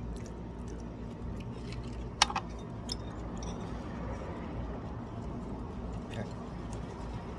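Steady low background rumble with a few light clicks of a metal fork against dishes at a meal, the sharpest about two seconds in.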